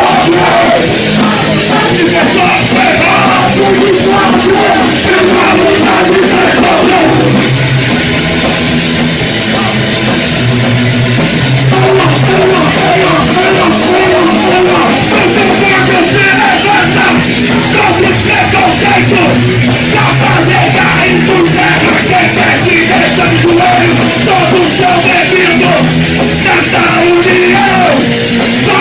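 Punk rock band playing a fast song live, loud and unbroken, with shouted vocals over distorted guitars and drums.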